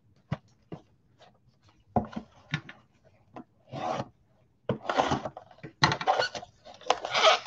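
Trading cards and foil card packs handled by gloved hands: scattered light clicks and taps, then denser rustling and rubbing over the last three seconds or so.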